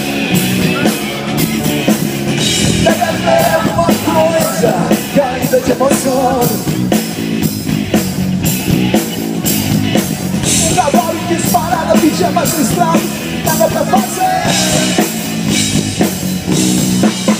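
Live rock band playing loud through a concert PA, heard from the crowd.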